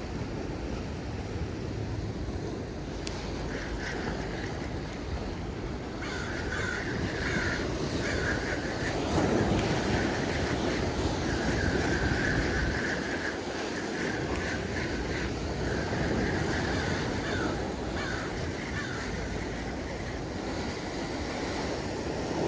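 Ocean surf washing and breaking against the rocks below, with wind buffeting the microphone.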